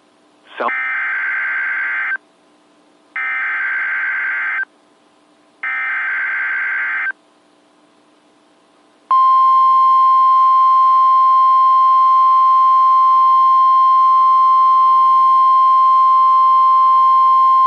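NOAA Weather Radio Emergency Alert System activation. Three bursts of SAME header data tones, each about a second and a half long with short gaps between them, are followed about nine seconds in by the steady single-pitch 1050 Hz warning alarm tone. Together they signal the start of a severe thunderstorm warning broadcast.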